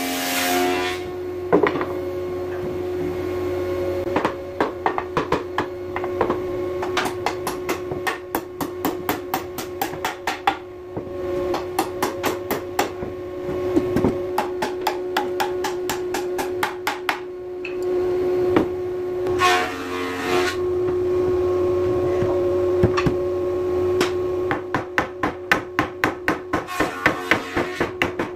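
Hammer blows on a wooden door-frame joint, struck in quick runs of several blows a second with short pauses between runs, over a steady background hum.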